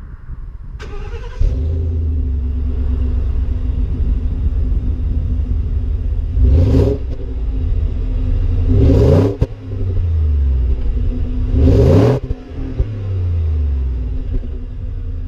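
Ford F-150's 5.0-litre V8 heard at the exhaust tip. It starts about a second in and idles, then is revved three times. Each rev rises quickly and drops back to idle, and the pitch sinks slowly after the third.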